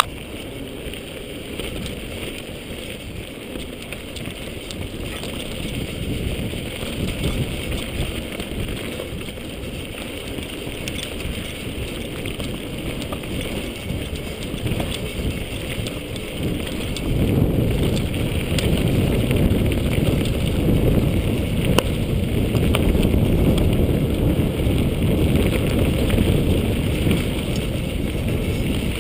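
Mountain bike rolling down a dirt trail: steady wind rumble on a chest-mounted GoPro's microphone mixed with tyre noise on dirt and occasional sharp clicks from the bike. The rumble grows clearly louder a little past halfway through.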